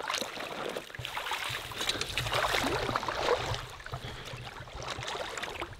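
Water splashing and sloshing as a hooked fish is played on a fly rod close to the bank, with the splashing loudest about halfway through.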